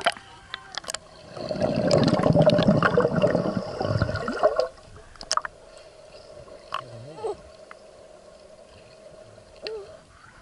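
Swimming-pool water churning and splashing close to the microphone for about three seconds, starting about a second in. After that a quieter steady hum with a few faint clicks is heard under the water.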